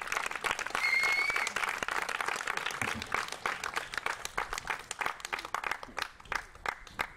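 Audience applauding, a dense patter of clapping that thins out into scattered single claps near the end.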